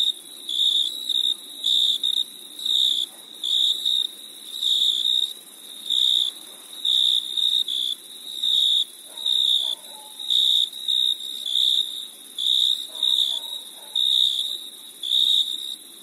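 Crickets chirping: a loud, high-pitched chirp about once a second over a steady, higher insect trill.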